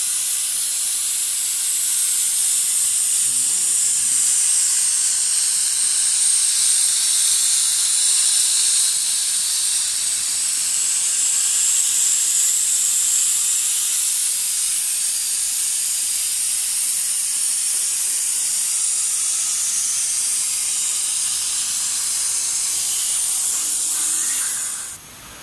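Steady high hiss of compressed air from the atmospheric plasma surface-treatment nozzle on a CNC gasket dispensing machine, running as the head traces the part. It cuts off sharply near the end.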